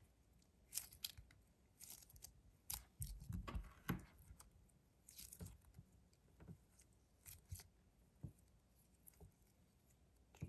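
Faint, irregular sticky crackles and soft squishes of a thick glitter-gel stress ball being squeezed and stretched in the hands.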